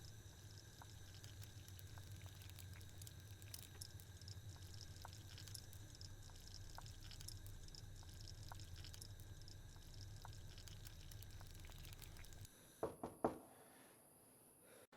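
Near silence: faint room tone with a low steady hum and scattered soft ticks, then a few soft knocks about thirteen seconds in.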